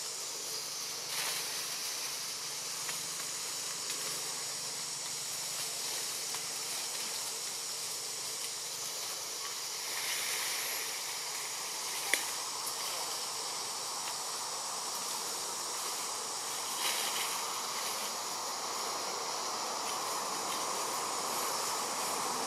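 Steady high-pitched drone of forest insects, with a single sharp click about halfway through.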